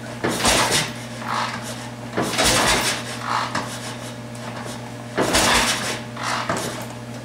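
750 Triumph twin being turned over with a spark plug out and a compression gauge in the hole, in three rough strokes about two to three seconds apart. This is a wet compression test on the right-hand cylinder, with oil added and the throttle open, and the reading rises with the oil in.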